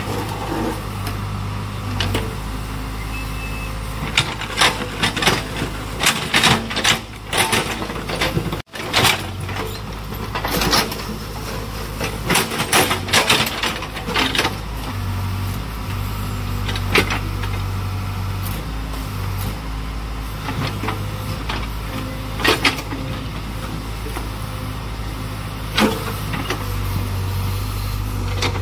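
Backhoe loader's diesel engine running steadily and working harder at times, with repeated sharp clanks and knocks from the bucket handling the load.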